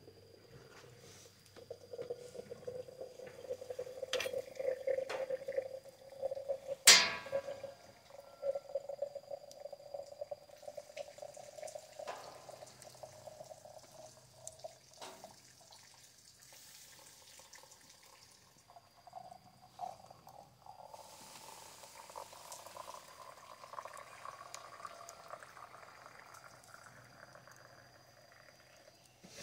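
Water poured into a container, with a tone that slowly rises as it fills. One sharp knock about seven seconds in.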